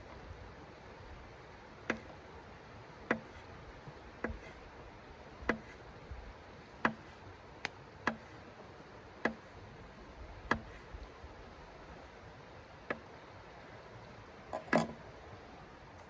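Folding knife slicing through a sausage, the blade clicking down onto a hard tabletop with each cut, about once every second and a bit. A louder double knock comes near the end.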